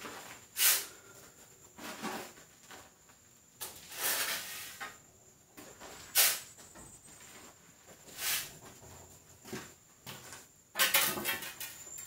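A steel shovel scrapes into a pile of sand on a concrete floor and the sand is tipped onto a hanging sieve, in about six separate scraping strokes a second or two apart, a few of them sharp and loud.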